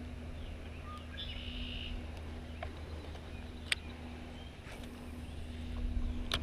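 Outdoor ambience with birds: one short buzzy bird call about a second in, faint chirps around it, and a low steady hum underneath. Two sharp clicks sound, one past the middle and one at the end.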